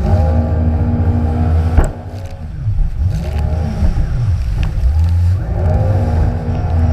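Jet ski engine running at high revs. A little under two seconds in, a sharp knock comes and the revs fall away; they wander low for about a second, then climb back to full throttle.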